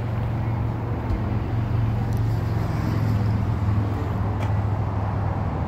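A steady low mechanical hum over a constant background noise, without breaks or changes.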